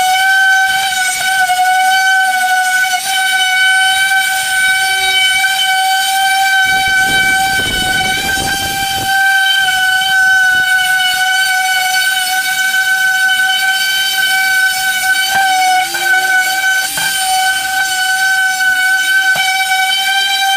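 Angle grinder running with a loud, steady high-pitched whine, grinding down bodywork on a car door.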